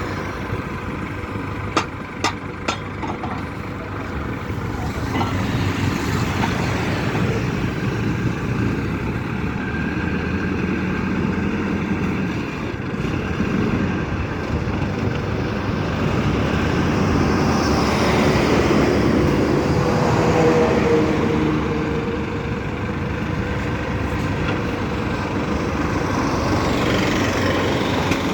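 The DD950B crash-barrier pile driver's engine runs steadily under load. A few sharp metallic knocks come about two seconds in, and the engine note swells and eases in the middle.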